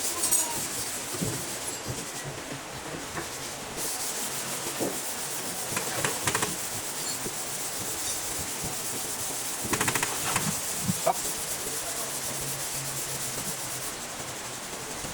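A steady hiss with rubbing and scraping and a few short clicks, including a quick run of fine clicks about ten seconds in.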